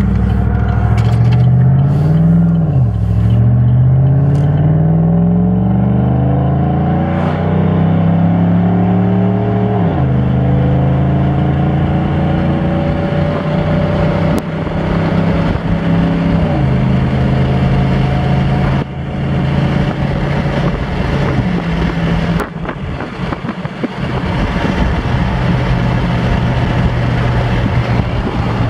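A 2015 GMC Sierra's exhaust, heard from inside the cab with the windows down. It is a 3-inch catback with a straight-through muffler, and the resonator and third catalytic converter are deleted. The engine's pitch rises under acceleration, drops at upshifts about three seconds in and again about ten seconds in, then settles into a steady tone at cruising speed.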